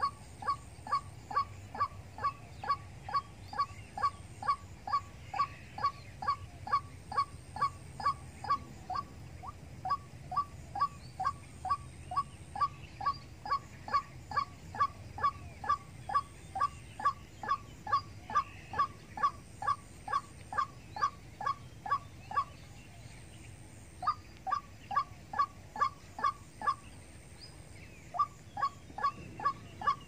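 White-breasted waterhen calling: a long, very regular run of short, sharp notes, a little over two a second, with two short breaks in the last third.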